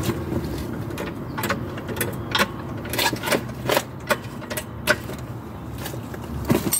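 Sharp metallic clicks, unevenly spaced at two or three a second, from mechanical work on a car's engine mount, over a low steady hum.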